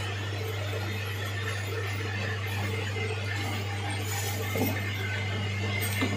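A few faint metal clinks and knocks as a starter solenoid's plunger and body are handled and fitted onto a starter motor's drive-end housing, over a steady low hum.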